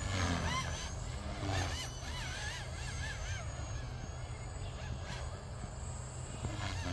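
Radio-controlled aerobatic helicopter flying at a distance, its whine wavering up and down in pitch as it manoeuvres, over a steady low rumble.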